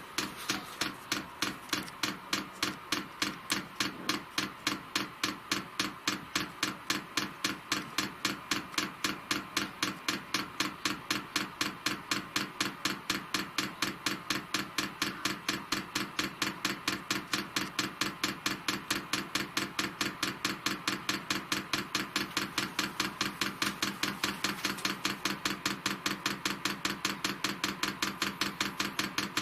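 Fuel dosing pump of a Chinese 5 kW diesel air heater ticking steadily, a few clicks a second, as it primes diesel up the fuel line.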